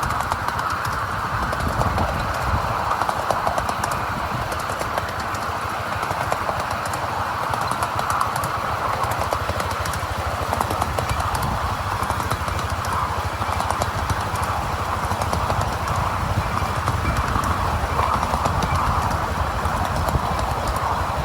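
Miniature railway train running along the track, with a steady rumble and fast clicking from the wheels on the rails.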